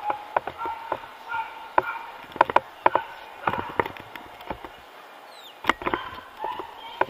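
Busy dog-show hall: scattered sharp knocks and clicks, a few close together around two and a half to four seconds in, over a steady background murmur, with one brief falling high squeak about five and a half seconds in.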